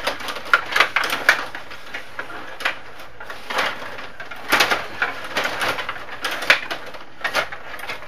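Stiga rod hockey game in play: irregular clicking and clattering of the control rods and plastic players, with the puck knocking against sticks and boards, coming in quick clusters of sharp clicks.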